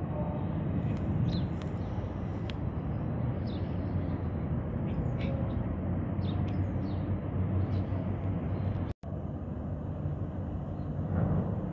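Steady low mechanical rumble of a container port across the water, with short high bird chirps now and then. The sound cuts out for an instant about nine seconds in.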